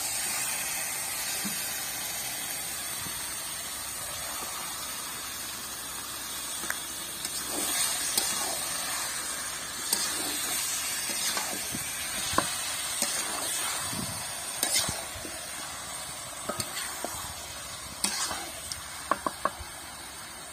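Marinated chicken pieces sizzling in hot oil as they are tipped into a metal karahi, then stirred and turned with a metal spatula, its blade scraping and clinking against the pan from about seven seconds in.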